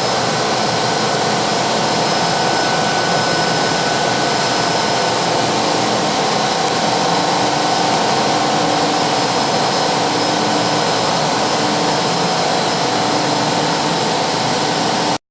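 CNC sanding-polishing machine for tank bottoms running, a loud, steady rushing noise with a few faint steady tones, cutting off abruptly near the end.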